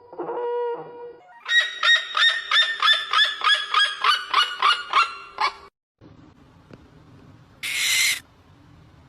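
Bird calls: a held, horn-like note ending about a second in, then a fast series of loud honking calls, about three a second for some four seconds. Near the end comes a short, harsh, hissing screech.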